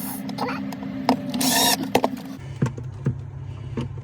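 Clicks and knocks of the fan motor and its mount being handled and pressed into place, with one brief louder scrape about a second and a half in, over a steady low hum that drops in pitch a little past halfway.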